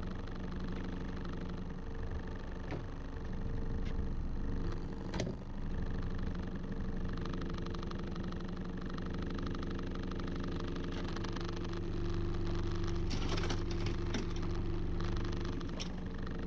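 Boat motor idling steadily, with a few sharp clicks and knocks: one about five seconds in and a short cluster around thirteen to fourteen seconds in.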